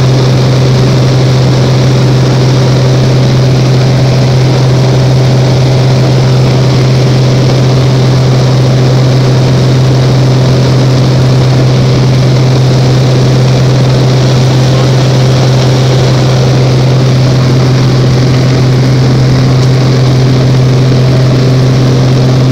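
Cessna 185 amphibian's six-cylinder piston engine and propeller running at steady climb power, heard from inside the cabin: a loud, even drone with a strong low propeller hum.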